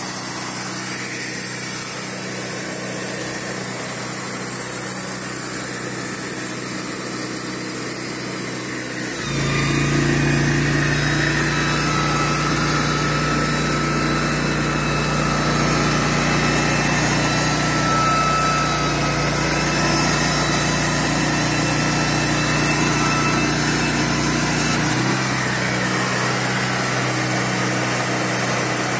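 Portable band sawmill's engine running steadily. From about nine seconds in, a deeper hum joins it for about fifteen seconds, then drops away again.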